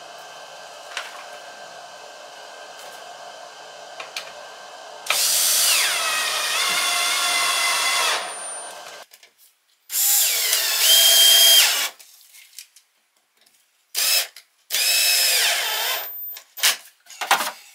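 Electric drill-driver working wood in four bursts, the longest first. In that first run the motor's pitch sags under load and then holds.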